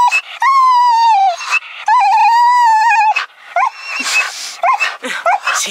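Spaniel whining in excitement as its owners return after leaving it alone. Two long, high whines of about a second each come first, then a run of short whines.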